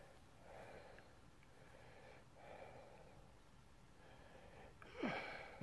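Near silence with faint breaths close to the microphone, and a short, louder breathy sound with a falling pitch about five seconds in.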